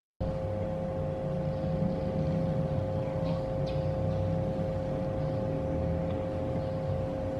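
Running desktop PC with a Cooler Master MasterLiquid ML120L RGB liquid cooler: fans and pump making a steady low hum with a constant high whine over it. The sound cuts in abruptly just after the start.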